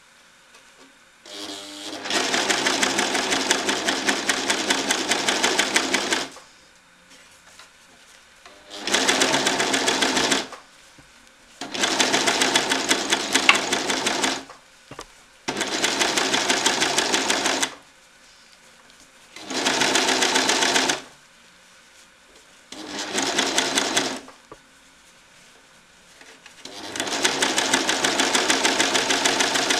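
Overlocker (serger) stitching an overlock seam along the edge of a fabric lining, run in about seven short bursts of one to four seconds with pauses between. Each run is a fast, even stitching rhythm; the first starts a little over a second in and the last is still going at the end.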